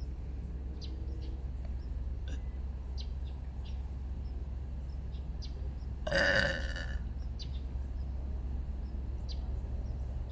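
A single loud, drawn-out human burp about six seconds in, lasting close to a second. A few faint, short high chirps are scattered around it over a steady low background rumble.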